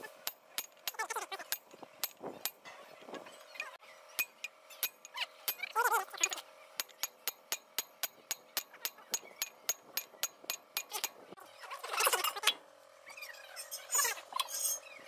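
Sledgehammer blows on a steel bar held against a truck wheel hub: a quick run of sharp metallic clinks, about three a second through the middle. A few short voice-like calls break in, the loudest about twelve seconds in.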